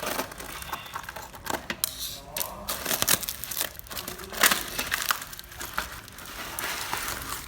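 Irregular crinkling and rustling handling noise with scattered clicks and knocks, the sharpest knock about four and a half seconds in.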